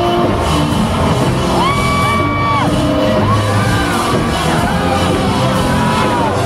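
Live rock band playing loudly in an instrumental stretch, driven by heavy drumming on a full kit with cymbals, heard from the audience. Voices in the crowd whoop over the music in long rising and falling calls.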